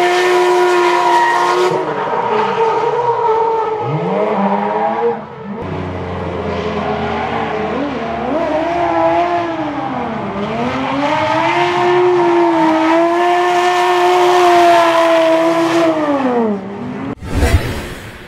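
Supercharged BMW drift car engines held at high revs while drifting, with spinning tyres. The pitch drops and climbs back several times as the throttle is lifted and reapplied. Near the end there is a sharp click and a short low thump.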